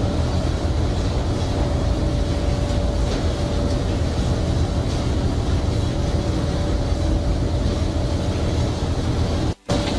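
Steady, loud din of fish-processing machinery and ship's engines on a factory trawler's processing deck, a deep rumble with a faint steady hum over it. It cuts out for a moment near the end.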